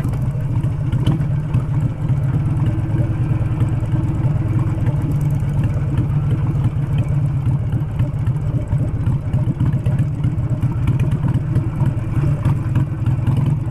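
Harley-Davidson V-twin motorcycle engine running steadily as the bike rides over a rough, rutted dirt road, with many small knocks and rattles from the bumpy ground.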